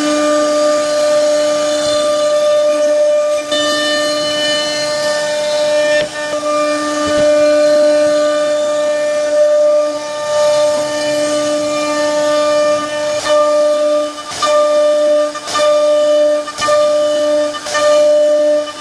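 CNC router spindle running at speed with a router bit cutting a profile into a wooden board: a steady high whine with a hiss of cutting on top. In the last few seconds the whine dips briefly about once a second.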